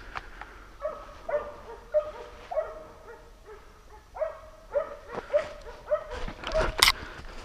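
Hunting dogs on a wild boar hunt barking over and over, about two barks a second. A sharp crack near the end.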